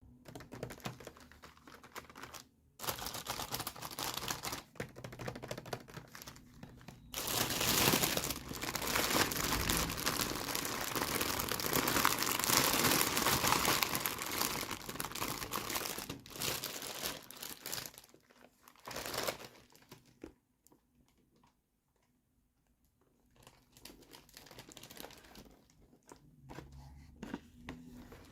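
Toy packaging being crinkled and torn open by hand, an irregular crackling and rustling that grows louder for a long stretch in the middle and stops briefly for a few seconds near the end.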